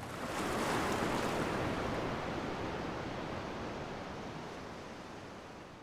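An even rushing noise like surf, swelling in the first second and then slowly fading out.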